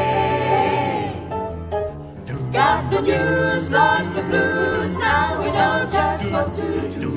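A mixed vocal ensemble singing in harmony over a low sung bass line; the voices thin out briefly about a second and a half in, then come back in together.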